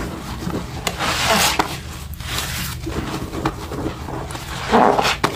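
Sponge scrubbing through thick cleanser suds on a hard surface: wet rubbing strokes, irregular, the strongest about a second in and near the end.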